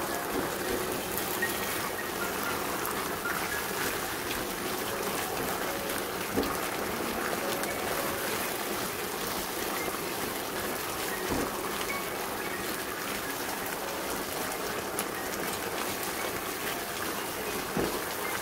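Sauce-coated mushrooms sizzling and bubbling in a hot wok as they are stirred with a silicone spatula, the starch-thickened sauce simmering. There are a few light knocks of the spatula against the pan.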